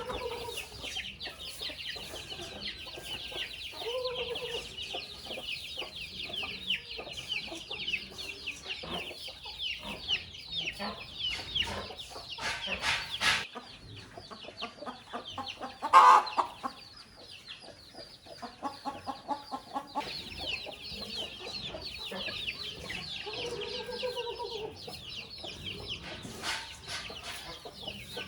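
A flock of chickens clucking, with a dense, continuous chorus of short high peeps over a few lower clucks. A sharp knock sounds once about halfway through.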